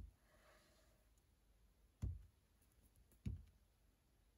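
Two soft thumps about a second and a half apart as a clear acrylic block stamp is pressed down onto card over a cutting mat; otherwise near silence.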